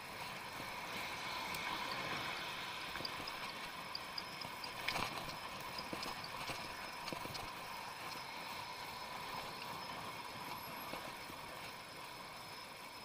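Bicycle rolling along an asphalt road: steady tyre and road noise with light rattling and ticking. There is a sharp knock about five seconds in.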